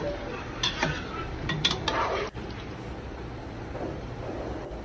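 Slotted metal spatula scraping and clinking against a nonstick frying pan as chicken pieces are stirred in oil, a few short scrapes ending about two seconds in, then only a faint steady background.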